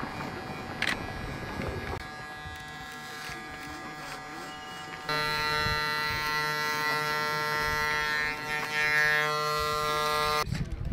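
Cordless electric hair clipper buzzing steadily as it cuts hair. The hum starts about two seconds in, becomes louder about halfway through, and cuts off abruptly shortly before the end.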